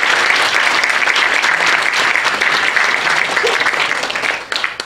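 Audience applauding, the clapping thinning out to a few last separate claps near the end.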